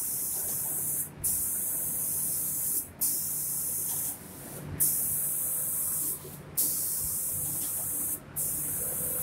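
Automatic spray gun of a 5-axis CNC door-painting machine hissing as it sprays, cutting off briefly five times and coming back on with a sharp burst each time. A low machine hum runs underneath.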